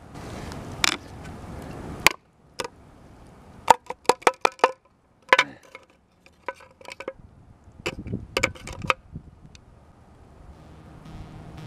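Metal clinks and knocks as a steel food can is gripped with metal tongs and tipped and tapped to empty the chicken out. There is a quick run of about five clinks about four seconds in and another cluster later on.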